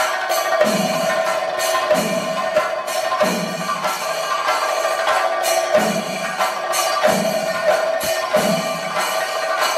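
Thayambaka percussion: several chenda drums struck with sticks in fast, dense rolls, over the steady clash of ilathalam hand cymbals. A deeper drum stroke falls about every one and a third seconds.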